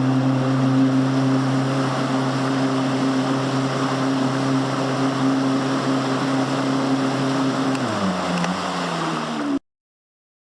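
An engine running at a steady pitch, with wind on the microphone. About eight seconds in its pitch drops as it slows, and about a second and a half later the sound cuts off abruptly.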